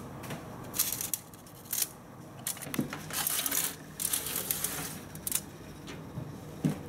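Aluminium foil crinkling and small metal clatters as a foil-lined baking tray is handled and slid into a countertop toaster oven, with irregular clicks and a sharp click near the end.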